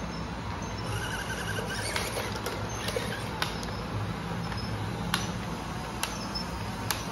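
Small electric motor and gearbox of a toy RC bulldozer running with a steady low hum, with a brief squeak about a second in and a handful of sharp plastic clicks and knocks as it pushes a pile of interlocking toy building blocks.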